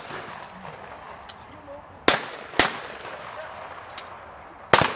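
Shotgun shots at a clay-target range: a loud pair about two seconds in, half a second apart, and another loud shot near the end, with a few fainter cracks between.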